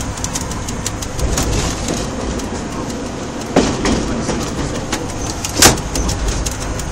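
Train running, heard inside the locomotive cab: a steady rumble and rattle with frequent knocks, and two louder bangs about three and a half and five and a half seconds in, as a derailed wheelset is dragged along the track over sleepers and ballast.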